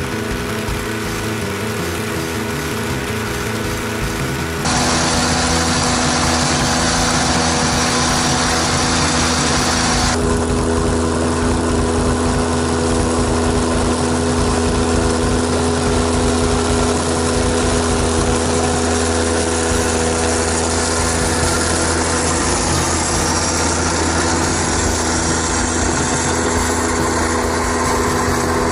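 Kyoritsu AZ850 spider mower's small petrol engine running steadily while mowing, louder from about five seconds in.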